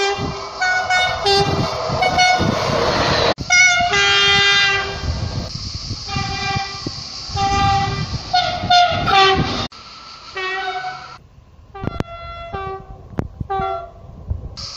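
Electric passenger trains sounding their horns as they approach: repeated blasts that switch between a lower and a higher note, over the rumble of the passing train. The horns come from three separate clips, with abrupt cuts about three and a half seconds in and again near ten seconds.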